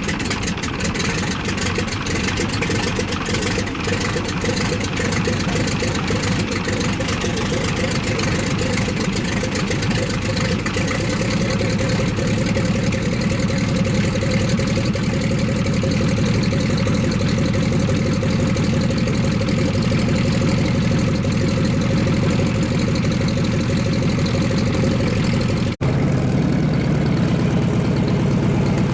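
Cessna 195's radial engine idling with the propeller turning over, shortly after start-up. It runs with a rough crackle of firing strokes for the first few seconds, then settles into a steady idle as the plane taxis. The sound drops out for an instant near the end.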